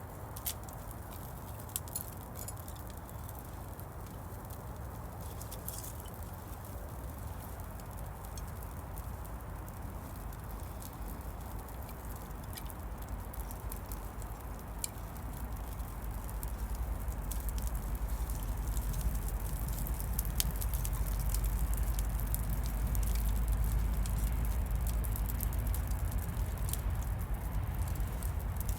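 Rain pattering and dripping in woodland, with many scattered sharp drip ticks. A low rumble builds from about halfway through and stays louder.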